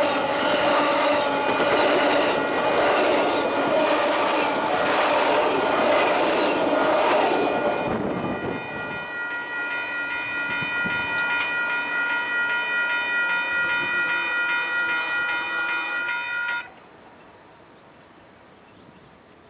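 Amtrak Superliner passenger cars rumbling and clattering past at speed, close by, for about eight seconds, then fading as the train pulls away. A locomotive horn then sounds one long steady chord from the departing train and cuts off abruptly about three seconds before the end. After it stops, only a faint background remains.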